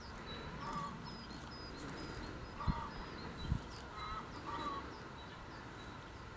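Faint honking bird calls, a few short calls spaced a second or so apart, with faint high chirps. Two dull knocks about a second apart near the middle stand out above them.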